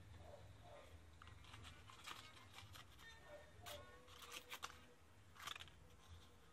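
Faint, scattered crackles of dry leaves being handled, over a low steady hum.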